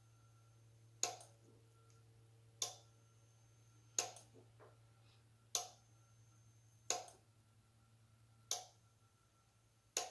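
Simplex 9254 fire alarm strobe on SmartSync, its power switched by hand in a slow-march code. A sharp click sounds about every one and a half seconds as the power is cut and the strobe flashes, with a faint high whine between some clicks.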